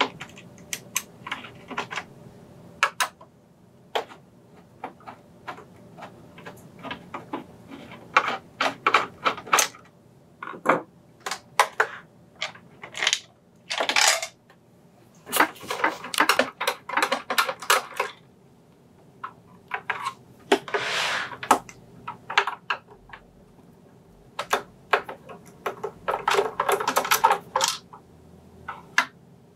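Clicks, scrapes and rattles of a Singer 7469 Confidence Quilter sewing machine's plastic housing being unscrewed and pried apart by hand with a screwdriver, with longer bouts of clatter around the middle and near the end.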